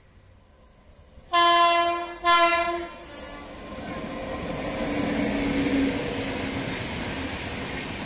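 Electric locomotive horn sounding two blasts about a second in, the second shorter. Then the Tejas Express passenger train runs past with a steady rumble of wheels on the rails that swells and holds.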